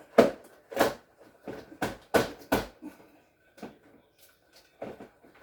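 A quick run of sharp knocks and clicks from refrigerator parts being handled and knocked into place, about seven in the first three seconds, then a few weaker ones spaced out.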